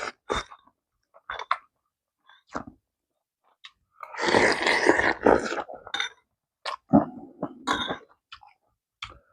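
Close-up mouth sounds of someone eating pork kimchi stew: chewing and smacking in short, irregular bursts, with a longer noisy stretch of eating about four seconds in.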